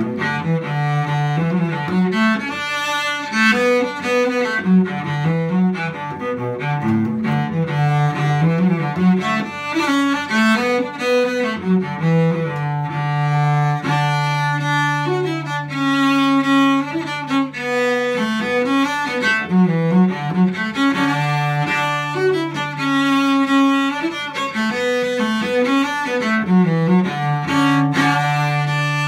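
Solo cello, bowed, playing a Scottish tune: a quick melody over a held low note that sounds like a drone and keeps returning.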